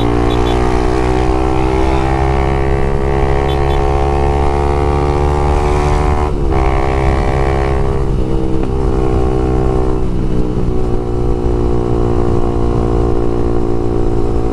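Honda Twister 250's single-cylinder four-stroke engine running at high revs through a LeoVince aftermarket exhaust, at about 130 km/h. Its pitch climbs slowly for the first six seconds, breaks off briefly, then holds steady.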